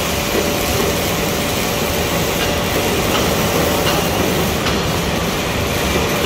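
ABA blown film extrusion line running: a loud, steady machinery noise with a faint steady tone and a few light ticks.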